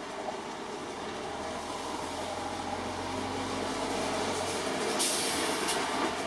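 Delivery lorry's engine as it drives in and draws to a stop, a low rumble that grows louder, with a short air-brake hiss about five seconds in.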